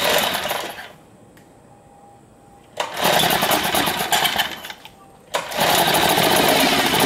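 Yamaha F2.5 single-cylinder four-stroke outboard being pull-started. Two bursts of cranking, the first right at the start and the second about three seconds in, die away. About five seconds in it catches and keeps running, being test-run in a tub of water after a water pump impeller replacement.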